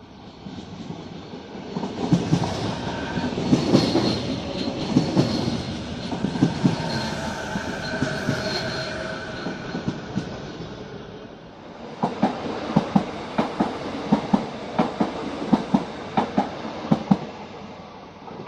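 Renfe train passing: a rush of wheel and rail noise that builds up, with high steady whining tones over it. Later comes a run of clacks about two a second as the wheels cross rail joints, then it fades away near the end.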